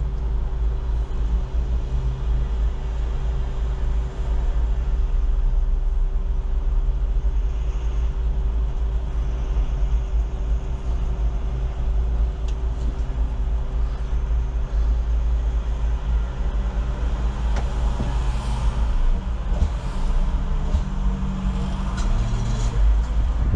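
Articulated Solaris Urbino 18 city bus driving, heard from on board: a steady low rumble of engine and road noise with a constant hum. The engine note shifts about three quarters of the way through.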